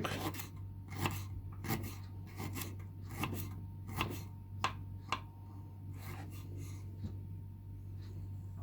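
Knife cutting peeled ginger root finely on a cutting board: irregular crisp cuts about two a second, stopping about seven seconds in, over a low steady hum.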